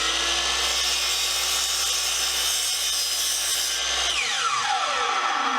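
Chop saw running as it cuts through a wooden screwdriver handle. About four seconds in the motor is released and winds down with a falling whine.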